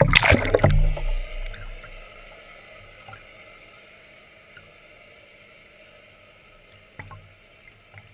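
Water rushing and splashing loudly against a GoPro camera close to the river surface for about the first second, then fading to a faint steady hiss. A couple of faint knocks near the end.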